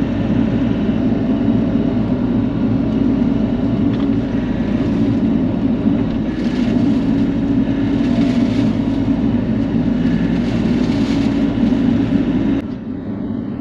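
Bobcat E42 mini excavator's diesel engine running steadily as a loud, even drone while it works the hydraulic brush cutter. Near the end the sound cuts abruptly to a quieter, lower rumble.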